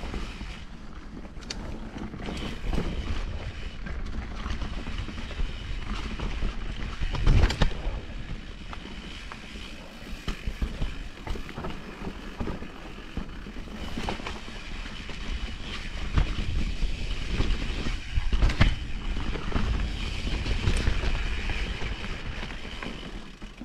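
Vitus Mythique 29 mountain bike descending singletrack: tyres rolling over dirt with wind on the microphone, and the bike rattling and knocking over bumps, with the hardest knocks about seven seconds in and twice more past halfway.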